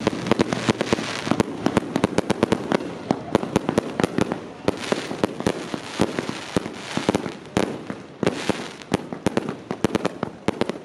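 Fireworks fired from the ground and bursting overhead: a dense, uneven string of sharp bangs and crackles, several a second.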